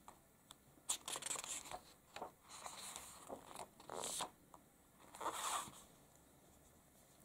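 A paper page of a picture book being turned and smoothed flat by hand: a series of soft rustles and swishes.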